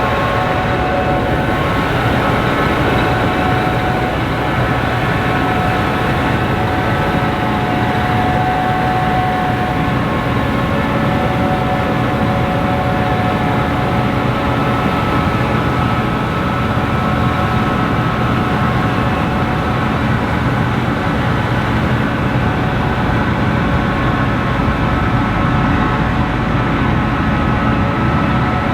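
Gleaner Class 7 combine harvester running steadily while harvesting wheat: a constant machinery drone with several steady whining tones over it.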